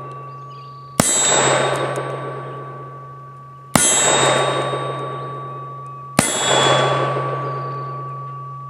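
Single-action revolver fired toward the camera, three shots about two and a half seconds apart. Each shot is followed by a long ringing echo that fades away before the next.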